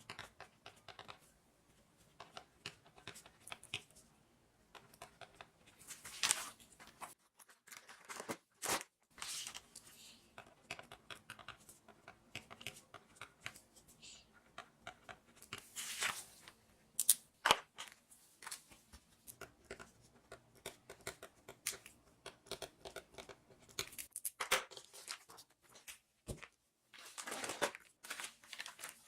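Kitchen handling of plastic meat packaging: film and wrap tearing and crinkling, scissors snipping, and light clicks and knocks of trays and containers, in an irregular string of short sounds.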